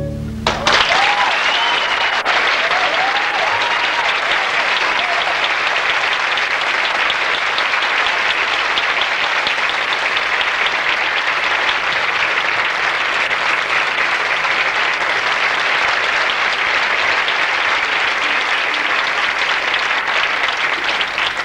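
Theatre audience applauding steadily after a song, with the final held chord of the music breaking off just as the applause rises. A few brief cheers or whistles stand out in the first few seconds.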